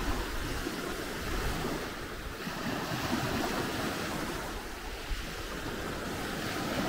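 Small Black Sea waves washing onto the beach, a steady wash of surf with light wind on the microphone.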